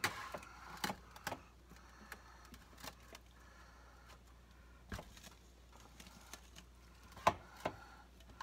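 Scattered sharp clicks and knocks, the loudest a little past seven seconds in: a wire beer-can chicken rack and an opened soda can knocking in a metal baking pan as a raw whole chicken is worked down over the can.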